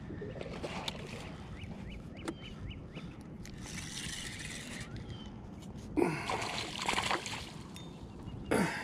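Two hooked largemouth bass splashing and thrashing at the surface as they are fought toward the boat. The splashes come in several bursts, the loudest about six and seven seconds in and again near the end, with scattered light clicks and knocks between them.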